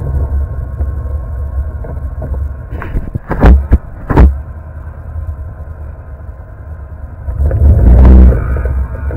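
ATV engine running on a snowy trail, easing off to a quieter steady run, then revving up loud again near the end. A few loud sharp knocks come about three to four seconds in.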